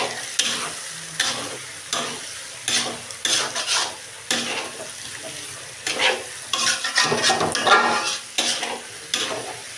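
Metal spatula scraping and stirring mung dal and fish-head pieces in a large metal karahi, in repeated strokes with a short lull about halfway, over a steady sizzle of the mixture frying down in oil.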